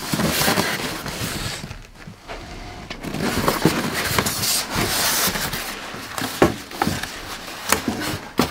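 Polystyrene foam packing scraping and rubbing against a cardboard box as it is worked loose and lifted out, with a few short sharp knocks in the second half.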